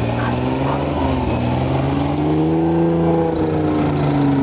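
Military vehicle engines running as an Alvis Sabre CVR(T) tracked armoured vehicle and a Land Rover move off. One engine revs up about a second and a half in, peaks, then slowly eases down.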